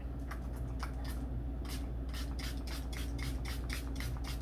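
Hands rubbing a skincare product into the skin: a series of short rubbing strokes, a few at first, then about five a second from about a second and a half in.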